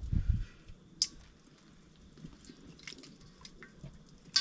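Small clicks and taps as a knife cuts a lime over a steel bowl. There is a sharper click about a second in, and another near the end with a brief metallic ring.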